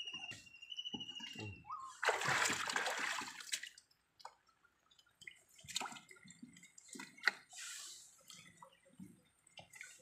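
Water splashing and sloshing around a small wooden boat, loudest for about two seconds near the start, then scattered knocks and drips against the hull.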